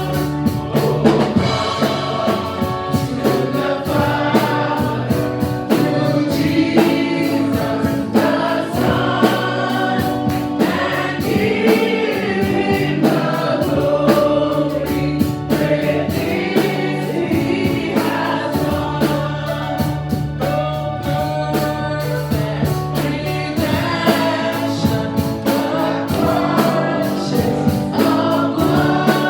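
Gospel praise-and-worship music: a choir singing over a band with steady bass and drums.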